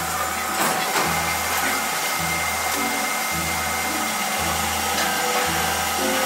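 1959 Poręba TR55 metal lathe running, its cutting tool turning a metal wheel blank for a belt grinder, a steady machine noise with faint background music under it.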